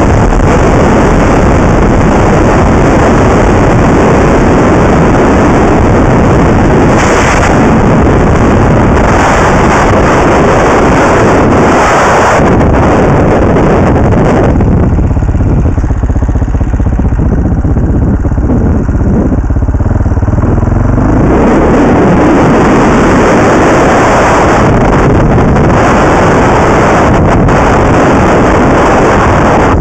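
Onboard sound of a Husqvarna SMS 630 single-cylinder supermoto under way: loud wind rush on the helmet-mounted camera mic over the engine. About halfway through the wind drops for several seconds as the bike slows, leaving the engine running plainly, then the wind noise builds again as it speeds up.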